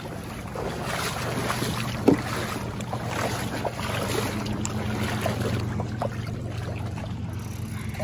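Small waves lapping at a rocky lakeshore, with wind on the microphone and a low steady hum underneath; a single sharp knock about two seconds in.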